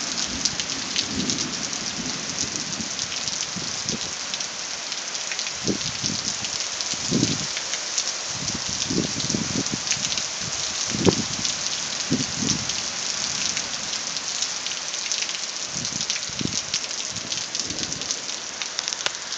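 Heavy rain falling steadily in a thunderstorm, with close drops ticking on a surface. Low rumbles of thunder come and go through the middle.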